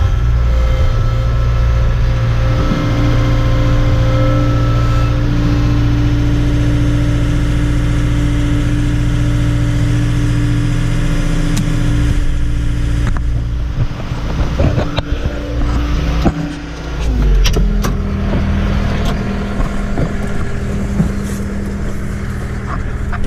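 A farm vehicle's engine running steadily. About two-thirds of the way in, its note dips briefly amid a few knocks and clanks, then settles at a slightly lower pitch.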